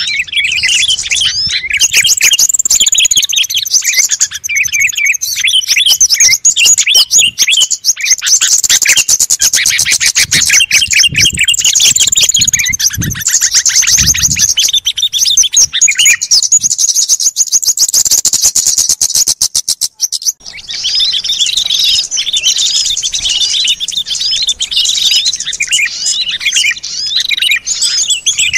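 A bird-lure recording of many small songbirds chirping and twittering at once, dense and overlapping, with stretches of rapid trills. There is a brief break about two-thirds of the way through before the chorus resumes.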